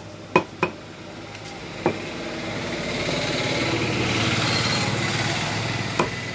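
A meat cleaver chopping a duck carcass against a wooden log block: sharp knocks, three in the first second, one about two seconds in and one near the end. Under them a small motor engine swells and fades as it passes, loudest in the middle.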